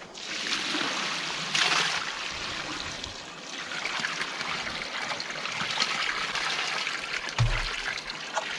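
Water poured from a large plastic tub, splashing onto bare soil and running across the ground toward a catch-basin grate, with a heavier gush about a second and a half in. A dull thump near the end.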